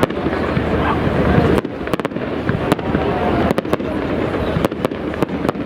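Fireworks display: a continuous low rumble of shell bursts with many sharp, irregular cracks and bangs on top.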